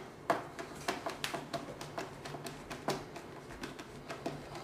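Irregular light clicks and taps, a few a second, of a screwdriver working a screw into the top of an Archangel 556 stock kit on a Ruger 10/22 receiver.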